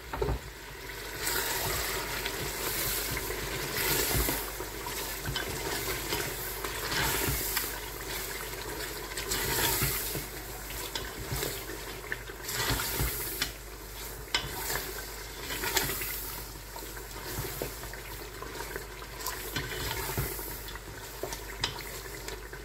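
Ground spinach being stirred into a hot, thick meat gravy in an aluminium pressure-cooker pot with a plastic slotted spatula: wet squelching and bubbling that swells with each stroke, with a few light clicks of the spatula against the pot.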